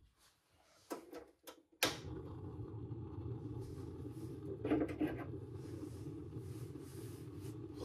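A few sharp clicks, then a propane gas stove burner catches suddenly about two seconds in and burns with a steady noise. A brief louder noise comes over it about five seconds in.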